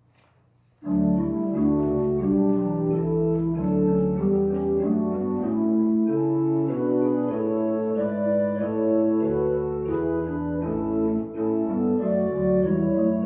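Organ playing sustained chords over a bass line. It starts suddenly about a second in.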